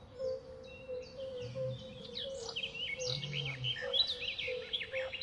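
Forest ambience: many birds chirping and calling in quick, darting notes that grow busier from about two seconds in, over a steady low note repeated about twice a second.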